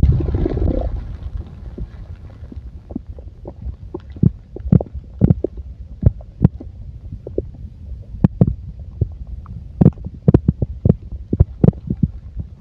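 Gurgling of a full stomach: a loud gurgle right at the start that fades over about a second, then irregular short pops and squelches over a low, steady rumble.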